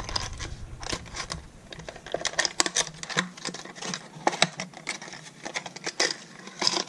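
Hands handling a fishing lure's plastic retail package: irregular small clicks, taps and crinkles of the plastic.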